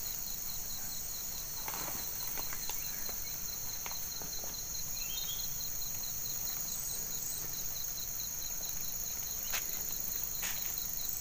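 Tropical forest insect chorus: a steady high pulsing trill under a continuous higher-pitched hiss of insects, with a few short rising chirps and occasional faint clicks.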